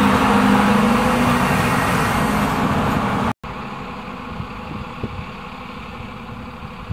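Stadler Regio-Shuttle diesel railcars running past close by, their underfloor diesel engines pulling under load. About halfway in the sound breaks off for a moment, then the train is heard fainter as it moves away, with a few sharp clicks from the wheels.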